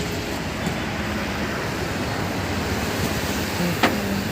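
Steady street traffic noise, with one sharp knock near the end.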